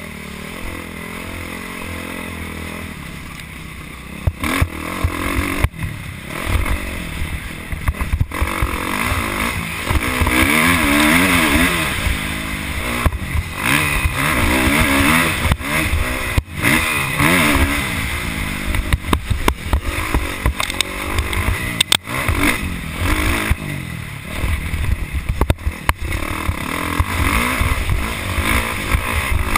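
Motocross bike engine heard from the rider's helmet, its pitch rising and dropping again and again as it is revved hard along a dirt track. Wind rushes over the microphone, with repeated knocks from the bumps.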